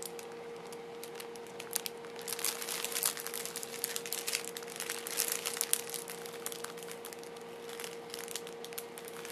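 Clear plastic zip bags being handled and turned over, crinkling in irregular quick crackles, over a faint steady hum.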